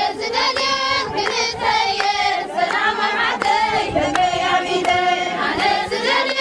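A group of women chanting together in a mehlela, the Eritrean women's collective prayer chant, with sharp hand claps about twice a second.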